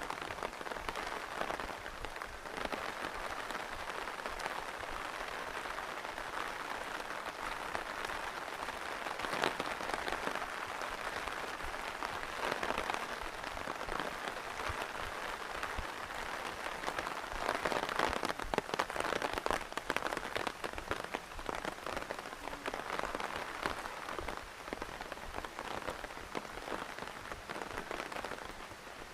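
Heavy rain falling in a dense, steady patter of drops, with heavier spells about ten seconds in and again around eighteen to twenty seconds in.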